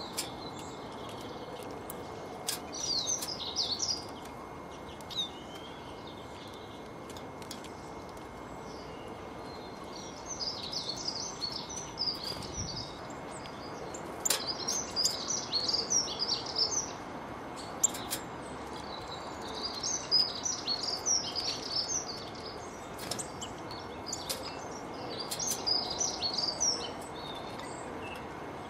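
Small songbirds twittering in repeated bursts of rapid high chirps, a few seconds each, over a steady outdoor hiss. A few sharp clicks cut through, the loudest one about two-thirds of the way in.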